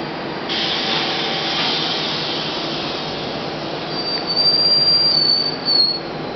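R68A subway train pulling out of the station, its running noise joined by a louder hiss about half a second in. About four seconds in, its wheels squeal on the rails in a high, steady tone for about two seconds that dips in pitch at the end.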